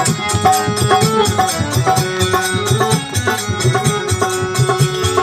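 Instrumental interlude of Indian devotional bhajan music with tabla and a melody instrument playing a steady rhythm, no singing.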